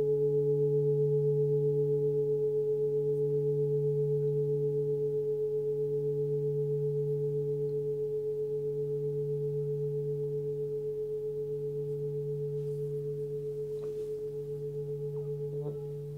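Hand-forged 26 cm Sun Moon singing bowl, tuned to about 146 Hz (D), ringing on after being played and slowly fading, its deep hum and a few higher overtones pulsing with a slow waver. Near the end there are a few faint taps and the level drops as hands touch the bowl.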